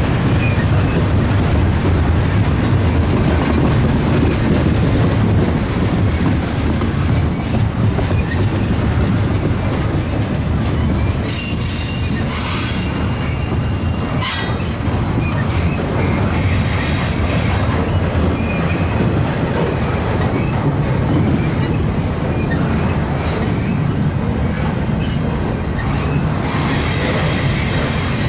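Double-stack intermodal freight train's well cars rolling past close by: a steady, loud low rumble of steel wheels on rail. High wheel squeal rises out of it around the middle and again near the end.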